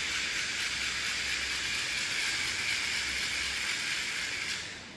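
Geared hand winder whirring steadily as it winds the rubber-band motor of a model plane, fading out and stopping near the end.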